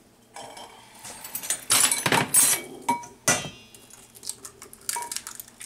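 Eggs being handled and knocked against a stainless steel mixing bowl, with a few sharp knocks and clinks. A couple of the knocks leave a brief metallic ring.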